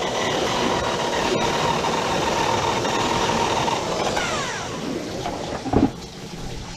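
Drum drain-cleaning machine running, its motor and spinning cable drum making a steady mechanical whirr as the cable is fed into a clogged drain stack. About four seconds in the machine winds down with a falling whine, and a short thump follows near the end.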